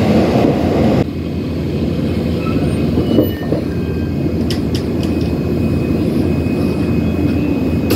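Tokyo Metro subway train rumbling as it pulls into the station and comes to a stop about a second in, then a steady low hum while it stands at the platform, with a few sharp clicks near the middle.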